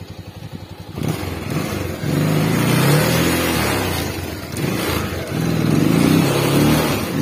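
Motorcycle engine ticking over at low revs, then pulling harder about a second in. The revs rise and fall as the bike picks its way along a rutted dirt track.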